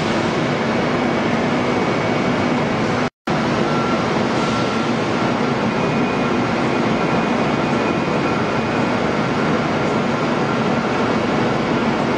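Steady running and cutting noise of an automated Okuma CNC machine machining a crankshaft, with faint, high, steady tones over it. The sound drops out completely for an instant about three seconds in.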